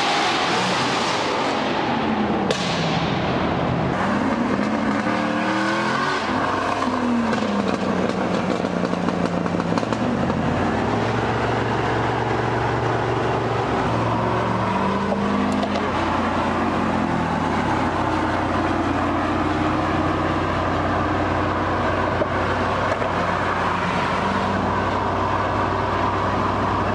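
Manual Chevrolet Corvette C5's V8 engine accelerating hard through the gears, its pitch climbing and dropping back with each shift over the first ten seconds or so. It then settles into a steadier, lower note.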